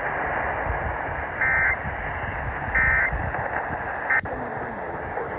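Emergency Alert System end-of-message data bursts: three short warbling digital tone bursts a little over a second apart, the third cut short and ending in a click. They sound over the steady hiss of an off-air radio recording, and they mark the close of the Required Monthly Test.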